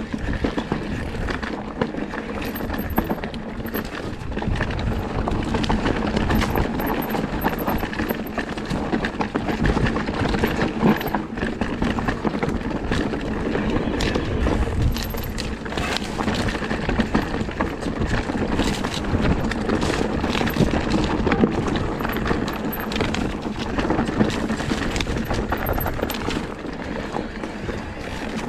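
Lapierre GLP2 electric mountain bike ridden down rocky singletrack: continuous rolling noise of tyres on dirt and stones, with frequent knocks and rattles from the bike over rough ground.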